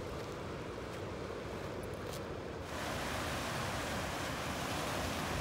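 Ocean surf washing over a rocky shore, with wind rumbling on the microphone. A little under three seconds in, the surf becomes suddenly louder and fuller.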